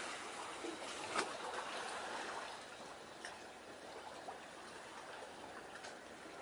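Gentle sea water washing and lapping at the shore, a steady soft hiss that eases a little partway through, with one sharp click about a second in.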